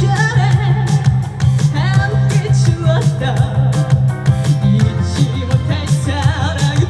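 Amplified live trot music: a band with heavy bass and a steady drum beat under a melody line with strong vibrato.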